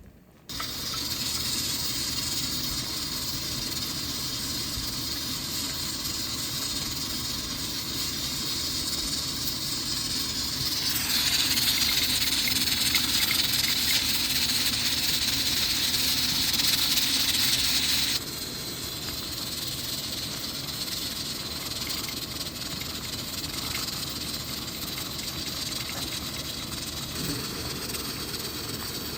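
A pot boiling hard with a steady steamy hiss, likely the dumpling hot pot. Partway through it grows louder and hissier for about seven seconds, then drops back suddenly.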